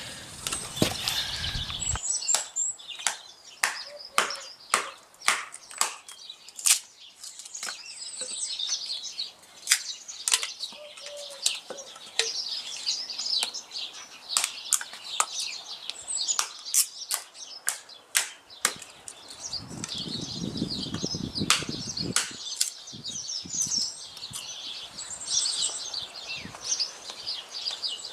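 Hand drill being spun for a friction fire: palms rubbing a wooden spindle make a long run of short, sharp strokes, roughly two a second. Small birds chirp and twitter throughout.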